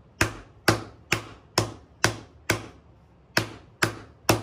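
Nylon-headed hammer striking a metal disc on a leather sandbag, sinking it into a dish shape: nine sharp blows at about two a second, with a brief pause before the last three.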